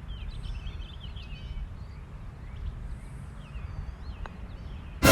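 Small birds chirping over a steady low rumble. A sudden loud sound cuts in right at the end.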